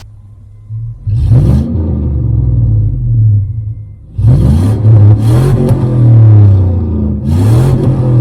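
Chevy 5.3L V8 exhaust through a Cherry Bomb Salute muffler, idling with a low rumble and revved up three times. Each rev rises in pitch and then settles back toward idle.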